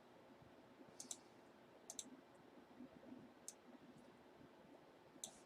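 Faint sharp clicks over near silence: a pair about a second in, another pair a second later, then single clicks near the middle and near the end.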